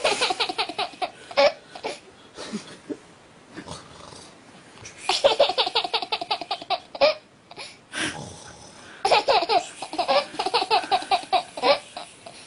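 Laughter in three bouts, each a quick run of repeated, high-pitched ha-sounds: one at the start, one about five seconds in, and a longer one from about nine seconds in.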